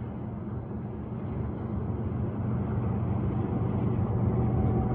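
EMD SD75M diesel locomotive running as a distributed power unit in a freight train. Its 16-cylinder two-stroke engine makes a steady low drone that grows gradually louder as it approaches.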